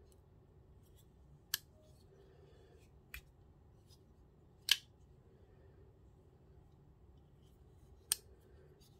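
KA-BAR Warthog tanto folding knife being opened and folded shut by hand: sharp metallic clicks as the blade swings out and locks and snaps closed. Four clear clicks, the loudest about halfway through, with a few fainter ticks between.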